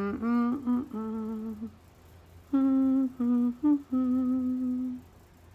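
A woman humming a short wordless tune in two phrases of held, steady notes, with a pause of about a second between them.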